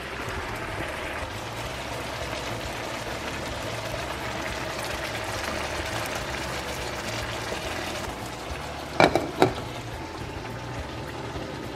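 Food frying in a pan, a steady sizzling hiss. Two short pitched sounds come close together about nine seconds in.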